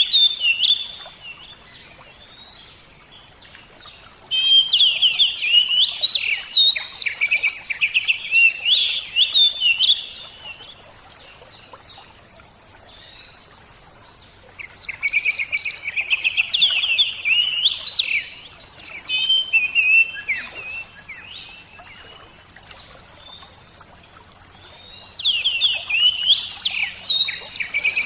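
Bird song in bouts of rapid, high chirping notes, each bout lasting about five or six seconds with quieter pauses of several seconds between.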